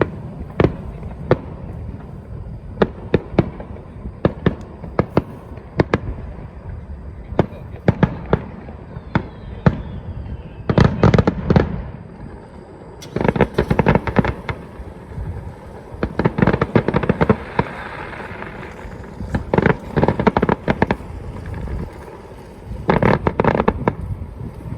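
Aerial fireworks shells bursting overhead: separate bangs a second or so apart, broken by several dense volleys of rapid bursts.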